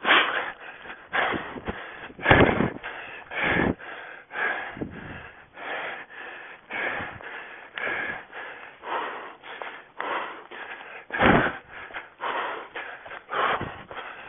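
A runner panting hard, about two breaths a second, with occasional heavy footfalls on the forest floor, picked up by a camera worn on the body.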